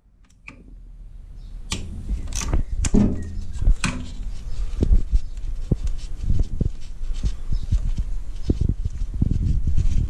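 Irregular light clicks and knocks of metal parts with rubbing, as a gloved hand works at the timing chain tensioner and chain of a three-cylinder EB engine, over a low handling rumble. The sound starts faint and builds over the first couple of seconds.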